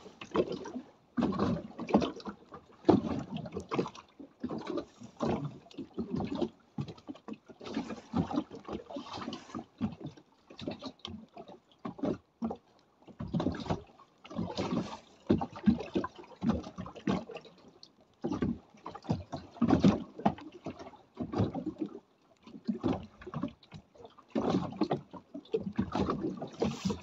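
Wind gusting over the microphone in irregular bursts, with short lulls between, on a small open boat at anchor in wind and rain.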